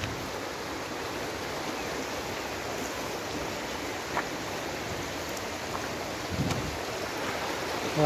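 Steady rush of a stream flowing over a rocky bed. A few faint clicks and a short low thump about six and a half seconds in.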